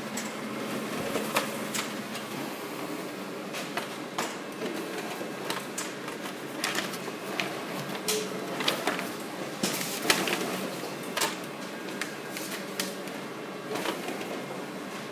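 Konica Minolta bizhub C550 colour copier running with a steady hum. Over it come frequent sharp clicks, knocks and paper rustles as the z-folded printed sheets are handled and leafed through.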